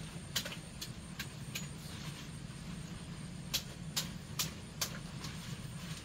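Wood fire crackling under a cooking pot, with sharp pops coming irregularly and clustering about two or three a second near the start and again past the middle, over a steady low hum.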